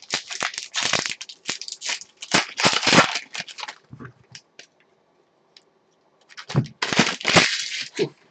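Foil trading-card pack being torn open and its wrapper crinkled: a run of crackling rips over the first four seconds, then, after a short pause, another spell of crinkling foil near the end.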